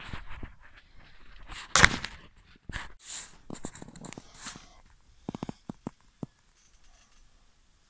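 Rustling and handling noises with scattered knocks: one loud, sharp knock about two seconds in, then a quick run of short clicks a little past the middle.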